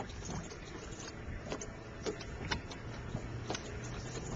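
Small waves slapping and lapping against a bass boat's hull, with wind on the microphone and irregular light ticks and knocks. A low steady hum comes in about three seconds in.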